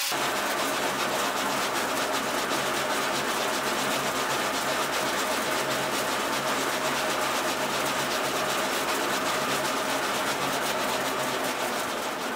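Steel axe blade being ground on an angle-grinder sanding disc spun by a metal lathe: a steady rough grinding hiss that starts suddenly as the edge meets the disc, over the lathe motor's even hum.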